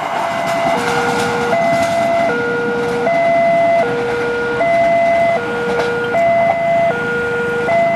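Electronic railway level-crossing warning alarm sounding a steady two-tone signal, a higher and a lower tone alternating about every three-quarters of a second, with the rumble of the passing train fading beneath it.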